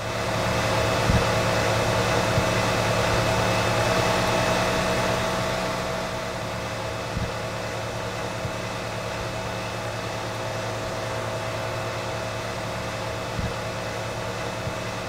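Air conditioning unit running steadily: a fan's rush of air over a constant low hum, a little louder for the first five seconds, with a few faint clicks.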